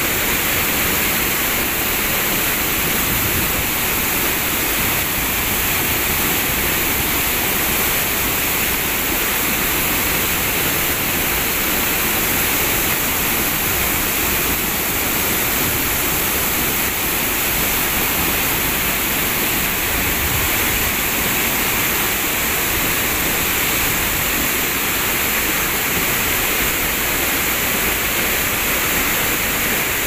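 Waterfall spilling over tiered rock ledges, a steady, unbroken rush of falling water.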